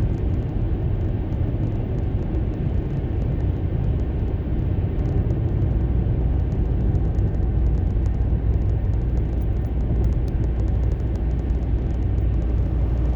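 Car driving on a wet road, heard from inside the cabin: a steady rumble of engine and tyres with faint scattered ticks.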